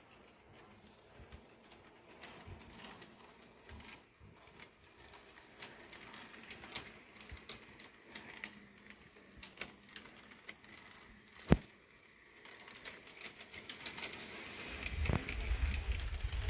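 Faint scattered small clicks and ticks, with one sharper click about eleven seconds in. Near the end a low rumble with quick knocks grows louder as an HO scale model train approaches and runs past on the track.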